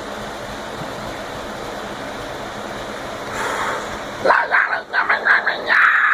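Harsh extreme-metal vocals, screamed and growled. A steady noisy wash runs for the first four seconds; then comes a quick string of about six short guttural barks, which breaks into a sustained scream near the end.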